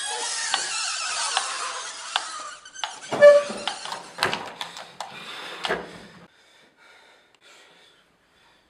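Mechanical metronome ticking steadily about once every 0.8 seconds over a hissing, squealing background. About three seconds in, the ticking stops and the metronome is grabbed and handled with several knocks and a short squeak, after which it goes nearly quiet.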